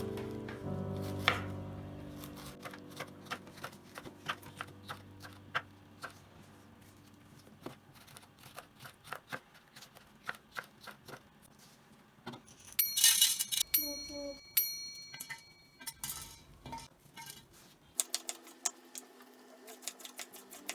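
Background music fading out, then irregular clicks and knocks of kitchen utensils and dishes. About two-thirds of the way through comes a brief cluster of louder clinks with a ringing tone.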